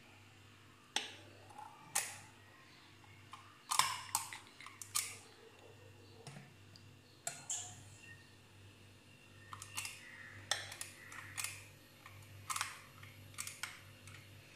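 Spring-loaded metal ice-cream scoop clicking as its lever is squeezed, and tapping against a glass bowl and wine glass while serving soft mousse: irregular sharp clicks and clinks, several in quick succession from about 3.5 s in.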